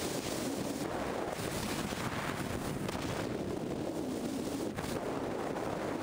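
Steady wind rush over the microphone of a camera mounted on the roof of a car driving at highway speed, with road noise beneath.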